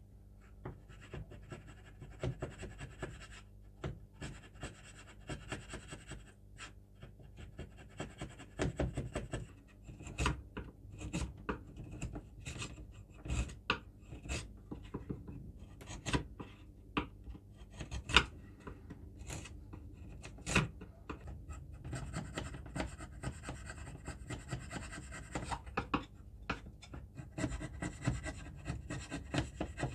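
A hand chisel paring shavings off a wooden broom handle, with irregular scraping strokes and sharp clicks of the blade on the wood. The clicks are loudest in the middle, and the scraping turns steadier near the end.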